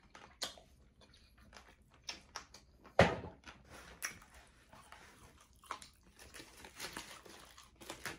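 Eating sounds: chewing and mouth clicks with scattered rustles and clicks as food is picked from the plate. One sharp knock about three seconds in.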